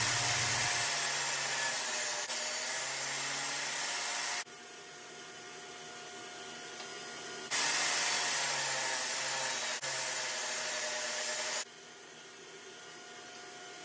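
Jobsite table saw ripping pallet-wood boards into narrow strips: two cuts of about four seconds each, the blade's whine wavering under load. Between and after the cuts the saw runs more quietly and steadily.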